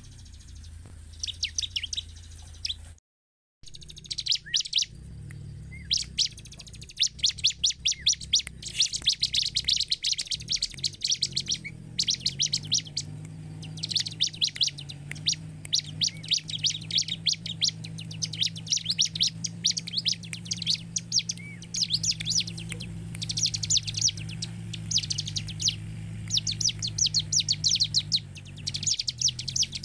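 Bar-winged prinia (ciblek) in full song: fast runs of sharp, high chirping notes in repeated bursts. The sound cuts out for about half a second roughly three seconds in.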